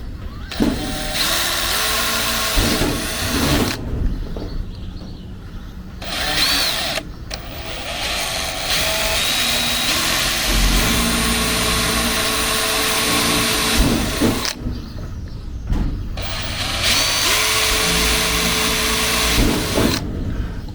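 Power drill boring 1/16-inch pilot holes through thin sheet metal, in four runs of a few seconds each with short pauses between, the motor speeding up as each run starts.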